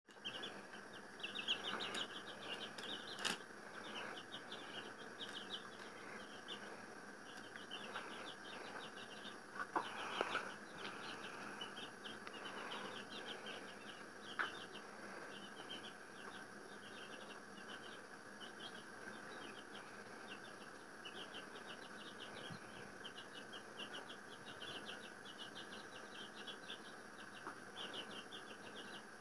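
Baby chicks peeping without pause, a dense stream of short high cheeps. A few sharp clicks stand out, the loudest about ten seconds in.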